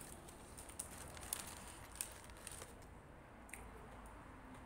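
Paper sandwich wrapper crinkling as the sandwich is handled, with a few sharp crackles over the first couple of seconds and one more later on.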